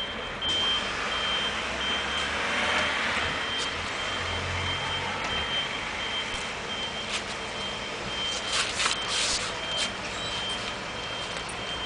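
A vehicle's reversing alarm beeping at a high pitch over steady engine and traffic noise. There are a few short rustles and scuffs, most of them about three-quarters of the way through.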